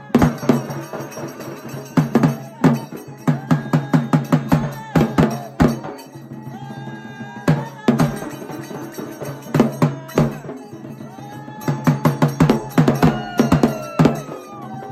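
Fast drumming, sharp strokes in quick runs broken by short lulls, over a steady low drone, with a few sliding higher tones near the end.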